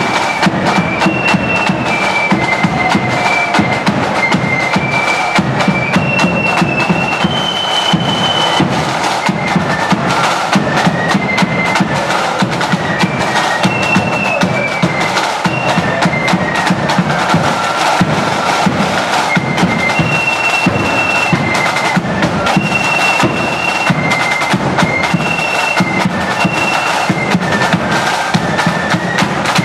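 Marching flute band playing a tune: high flutes carry the melody over rapid snare drumming and bass drum.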